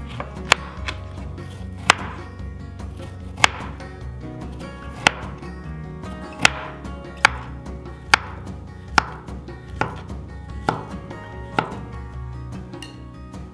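Kitchen knife slicing an orange and then a kiwi on a wooden cutting board, the blade knocking sharply on the board about once a second, eleven cuts in all, with soft background music underneath.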